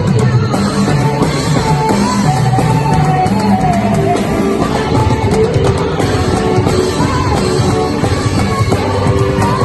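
Loud live music with singing: a melody voice over a band with heavy bass and drums.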